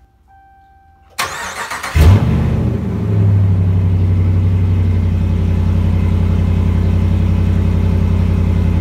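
2017 Ram 1500's 5.7-litre Hemi V8 started with its muffler removed. The starter cranks for about a second, the engine catches with a loud flare of revs, then it settles into a steady, loud unmuffled idle.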